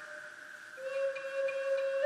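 Background flute music: a quiet moment between phrases, then a long held note from a little under a second in.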